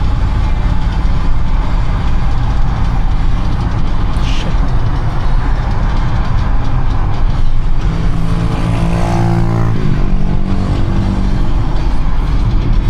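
City driving traffic noise: a steady low rumble of engine and road noise. About eight seconds in, a deeper vehicle engine drone comes up for about two seconds and then drops away.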